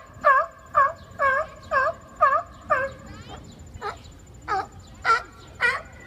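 Seals calling in a rapid series of short, pitched cries, about two a second, pausing briefly a little past the middle before calling again.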